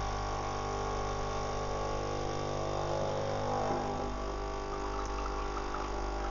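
The water pump of a Philips Saeco Odea Giro espresso machine running with a steady electric buzz, pushing water through the brew unit during a manual rinse.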